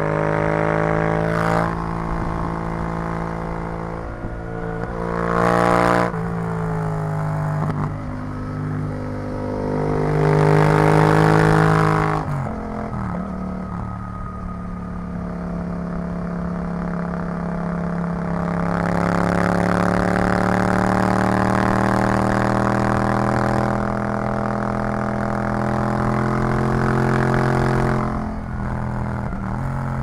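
Yamaha MT-07's 689 cc parallel-twin engine through an Arrow full exhaust system, ridden on the road. Several times it opens up and gets louder, with a drop in pitch about twelve seconds in, then it holds a steady, louder pull for several seconds before easing off near the end.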